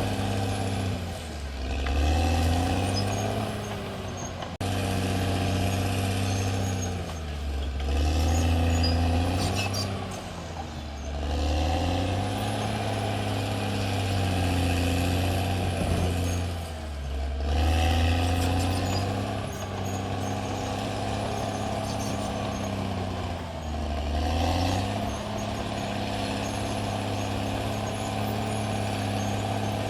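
Caterpillar D6R XL bulldozer's diesel engine running under load, its pitch dipping and picking back up several times as the engine is pulled down and recovers.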